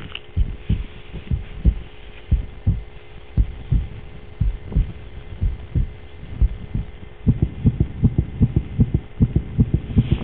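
A run of dull, low thumps over a faint steady hum. The thumps come unevenly at first, then about seven seconds in they quicken to roughly three a second, and the hum stops.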